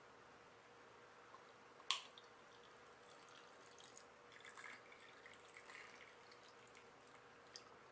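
Lemon iced tea poured over ice cubes in a stemmed glass, faint: one sharp clink about two seconds in, then a few seconds of light trickling and small ticks as the tea runs over the ice.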